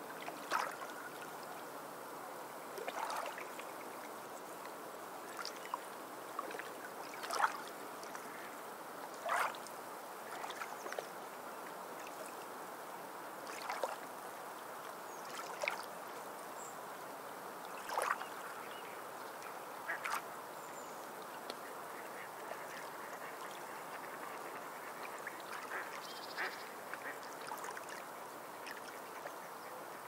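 Sea waves washing steadily over rocks, with sea birds giving short, sharp calls every couple of seconds.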